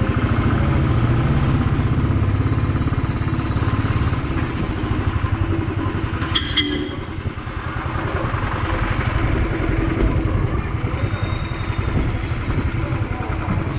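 Royal Enfield motorcycle engine running at low riding speed with a steady, rapid exhaust pulse, easing off briefly about halfway through and then picking up again.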